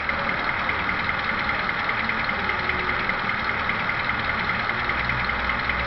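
Recorded diesel engine sound from an ESU LokSound decoder in an HO-scale Vossloh G2000 model locomotive, running steadily at idle, with a deeper hum coming in about five seconds in.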